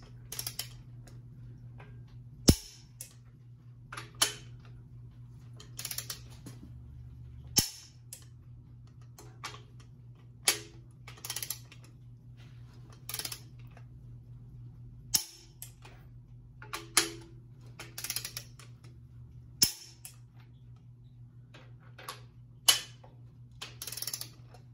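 Torque wrench being pulled on cylinder head bolts: quick ratcheting strokes, then a sharp click each time a bolt reaches its set torque of 105 ft-lb, several loud clicks a few seconds apart.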